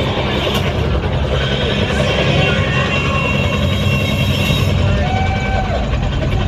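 Loud, steady low rumble from the arena PA under a concert crowd's shouting and cheering, with a few short whistles or cries about five seconds in.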